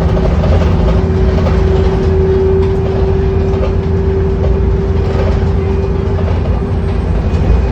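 Wright Pulsar 2 single-deck bus on a VDL chassis heard from on board: a steady engine and road rumble with a high steady whine that fades out about six seconds in.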